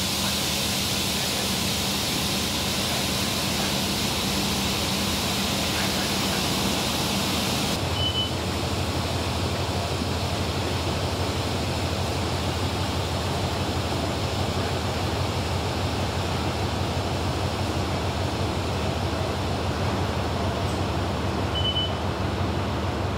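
Steady mechanical hum under a broad hiss. About eight seconds in, the hiss stops and the hum drops lower. Two short high beeps sound, one soon after the change and one near the end.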